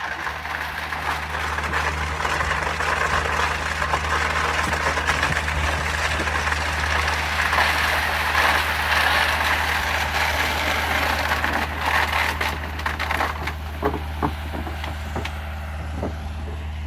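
Heavy excavation equipment's diesel engine running steadily, with dense rattling and crunching noise over it and several sharp knocks in the last few seconds.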